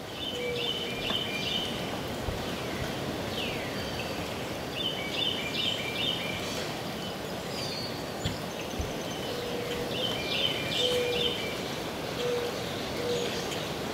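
Northern cardinal singing: three bouts of quick repeated whistled notes, with a few single notes sliding downward between them, over a steady background hiss.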